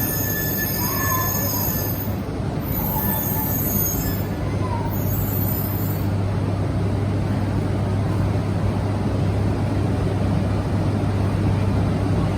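Train running: a steady rumble with a constant low hum.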